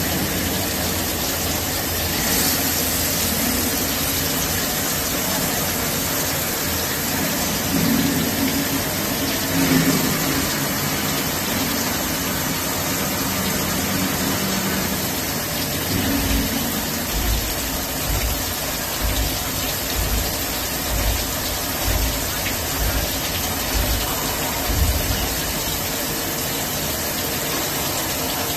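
Swiss-type CNC lathe running under flood coolant: a steady rush of coolant spraying onto the tooling and workpiece over the machine's running hum, with irregular low thuds in the second half.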